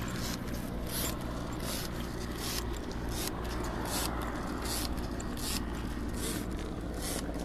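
Footsteps scraping and crunching on dry, burnt ground and ash, about two steps a second, over a steady low rumble.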